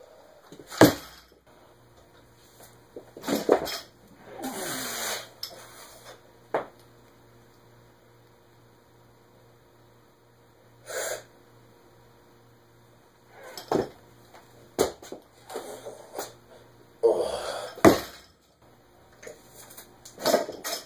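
Barbell with bumper plates set down and dropped on a concrete floor: a few sharp thuds and clanks, the loudest about a second in. Between them come heavy, forceful breaths of the lifter.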